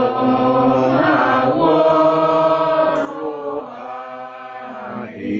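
A man singing a hymn in Luo, solo and unaccompanied, in slow, long-held notes.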